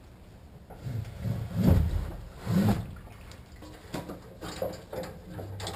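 A few gallons of fuel sloshing inside a Ford Super Duty's original molded-plastic fuel tank as it is tipped and lowered by hand, with three heavy swells in the first few seconds, then lighter knocks of the tank.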